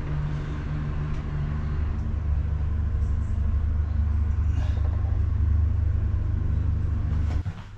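A steady low rumble that stops suddenly near the end.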